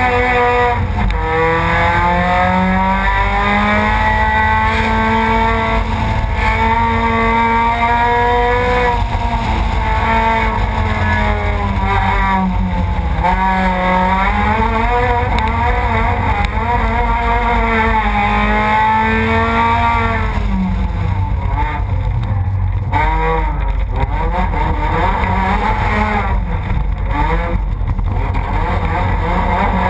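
Rallycross car's engine heard on board over a heavy low rumble, revs climbing and dropping again and again through gear changes and corners. In the last third the engine note fades under rougher noise with several short knocks as the car runs onto the dirt section.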